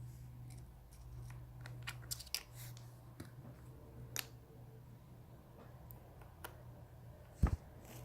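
Small tools and parts clicking and tapping against an opened iPhone 6 as it is reassembled, a scatter of light ticks, with one louder bump about seven and a half seconds in. A steady low hum runs underneath.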